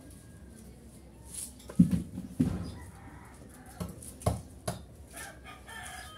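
Chickens clucking in a few short, sharp calls about two and four seconds in, with a rooster starting to crow near the end.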